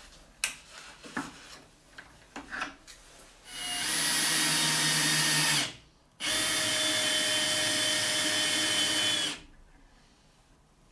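Cordless drill motor running in two steady spells, about two seconds and then about three seconds with a short pause between, as it screws an M8 threaded rod into plywood. A few light handling clicks come before the drill starts.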